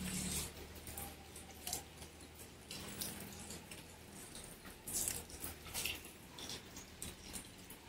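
Rainwater dripping: scattered, irregular light taps over a faint, steady low hum.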